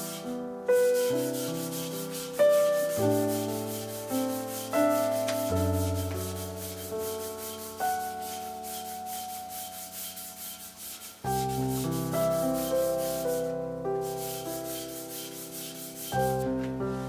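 Soft piano music, with a rag rubbing over the metal rim of a Chandler & Price platen press's drive pulley underneath it as the old grease is wiped off.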